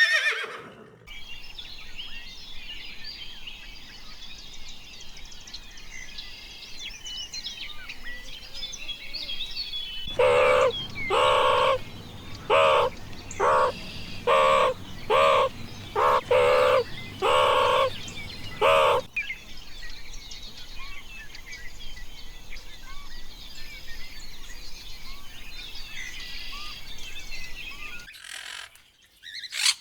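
Small birds chirping in the background, with a run of about ten loud, short, repeated calls from a larger bird about a third of the way in, lasting some nine seconds.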